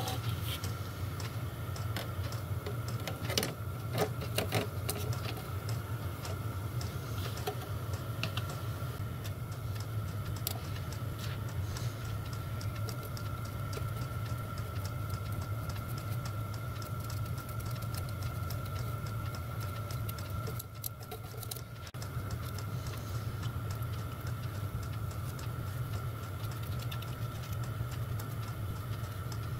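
Light clicks and taps of brass and copper tank panels and a flux brush being handled on a wooden workbench, over a steady workshop hum with a faint high whine. The hum dips briefly about two-thirds of the way through.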